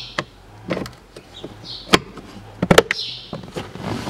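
Plastic clicks and knocks from the cabin air filter cover of a Mitsubishi Colt being pressed and snapped shut by hand, with short scraping rustles between them. One loud click comes about two seconds in, and a quick cluster of clicks follows just under a second later.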